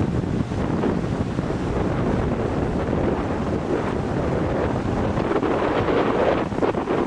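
Rushing river water around a raft, with wind buffeting the microphone; a steady, loud rush with no distinct events.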